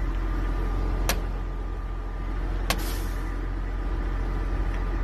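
Steady low rumble of a vehicle, with two sharp clicks: one about a second in and a louder one a second and a half later.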